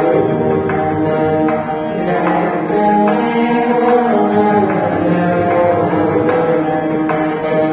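Carnatic veena ensemble playing together, several veenas sounding a melody over steady mridangam drum strokes.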